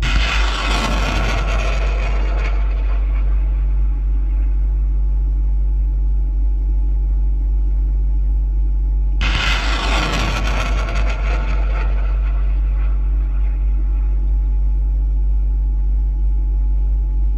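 HIMARS rocket launches: each one a sudden loud rush of rocket-motor noise that fades over a couple of seconds, at the start and again about nine seconds in, with a third starting right at the end. Underneath runs a steady low engine rumble.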